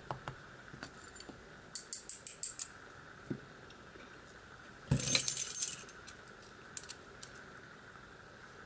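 Small metal parts of a padlock clinking and rattling in two quick bursts, one about two seconds in and one about five seconds in. This is the last pin stack being worked out of the gutted padlock.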